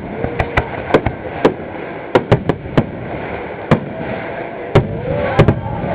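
Aerial fireworks bursting in quick, irregular succession: about a dozen sharp cracks, some coming in close clusters.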